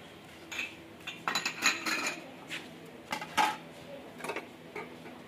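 Metal dishes clinking and clattering: a stainless-steel bowl of used teacups being set down among steel pots. It comes as a string of sharp clinks, busiest about one to two seconds in, with a few more later.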